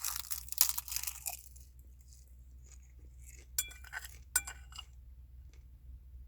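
Crunching of food being bitten and chewed close to the microphone for about the first second and a half, then several short ringing clinks of eating utensils against a dish a few seconds in.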